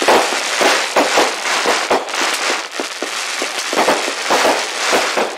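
Ground-launched consumer firework spraying sparks: a dense, continuous crackle studded with many sharp pops.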